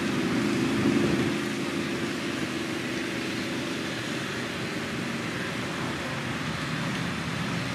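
Mud buggy on giant tires with its engine running steadily under load as it pulls a wrecked truck out of the mud on a tow strap, a little louder in the first second or so, over a steady hiss.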